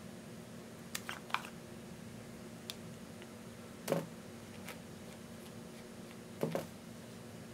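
Quiet handling of a plastic cosmetic container and a plastic spatula. There are two light clicks about a second in, then soft taps and scrapes as white cream is spooned onto slime, around four seconds in and again near the end, over a faint steady hum.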